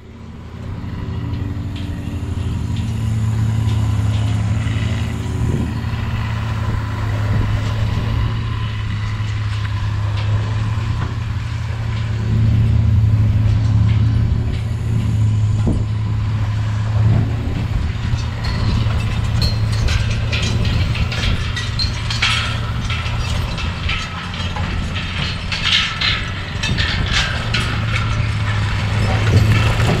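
An engine running steadily at a constant speed, with mechanical rattling and clatter mixed in during the second half.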